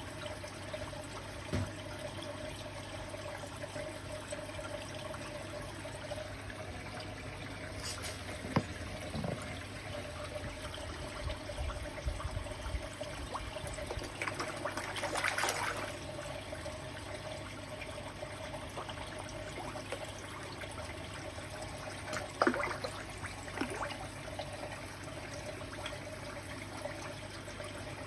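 Water trickling steadily into a koi pond, over a faint steady hum. Koi feeding at the surface make a few brief splashes, the longest about halfway through.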